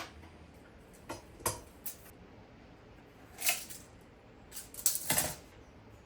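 A few scattered light clicks and knocks, then a brief scrape about three and a half seconds in and a short cluster of knocks and scrapes near the end. These are the sounds of a wooden drawer and its runner being handled and taken out.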